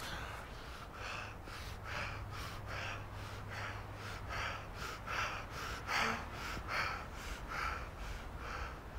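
A man panting hard and fast, about two to three rough breaths a second through an open mouth: out of breath after great exertion and fright.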